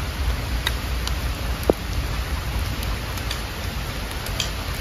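Steady rain falling, with scattered faint drips and one short, sharp knock about a second and a half in.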